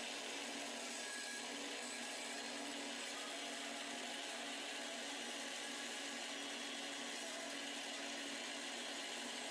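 Band saw running steadily, its blade cutting through a reclaimed cedar board.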